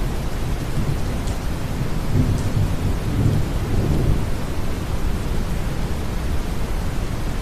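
Deep brown noise blended with steady rain, with a low roll of distant thunder swelling about two to four seconds in.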